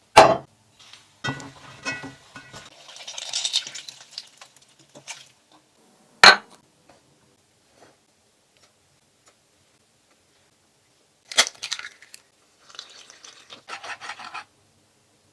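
Kitchen handling sounds: three sharp knocks of dishes or utensils being set down, the first right at the start, one about six seconds in and one about eleven seconds in, with clinking and rustling in between.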